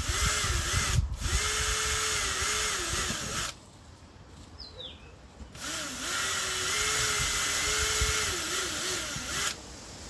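Electric drill boring small screw pilot holes for a livewell vent, two runs of about three to four seconds with a pause between, the motor's pitch wavering as the bit bites.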